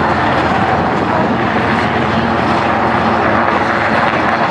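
Westland Sea King helicopter hovering low, a loud steady drone of its rotor and twin turboshaft engines.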